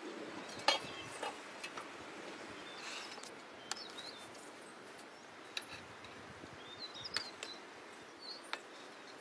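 Small birds chirping in short calls over a steady outdoor background, with a few sharp clicks now and then.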